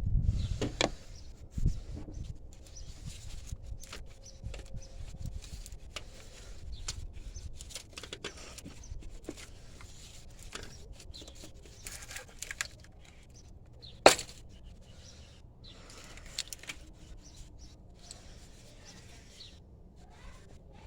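Scattered light clicks and taps of a hand tool and metal parts as the 7 mm screw holding a coil pack is removed, with one sharp click about fourteen seconds in.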